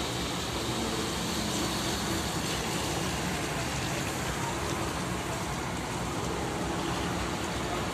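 Steady low engine rumble with a constant hiss over it.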